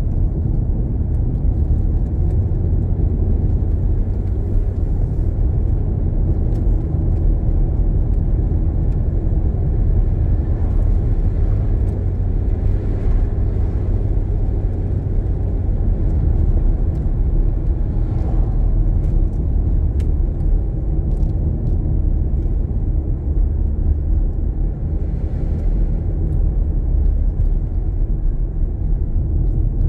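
Car driving at steady speed, heard from inside the cabin: an even, low rumble of tyre and engine noise.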